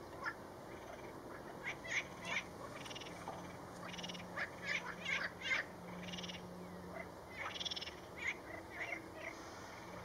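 Animal calls at a pond: many short chirps falling in pitch, and two buzzy trills of about a second each, one near the middle and one near the end.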